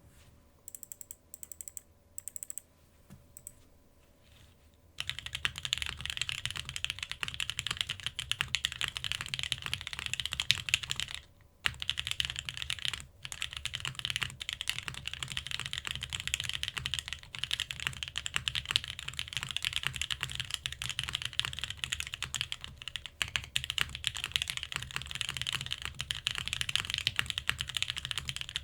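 Custom mechanical keyboard (TGR x Monokei Jane V2 ME) with lubed OP Black switches on a PP plate in an O-ring mount, under GMK keycaps, being typed on. A few scattered keystrokes come first; about five seconds in, fast continuous typing begins, with a brief pause near the middle.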